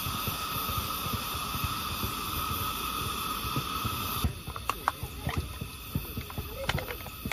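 Vintage Coleman 502 white-gas single-burner stove running with a steady roar. About four seconds in, the roar drops abruptly, and a scatter of light clicks and taps follows.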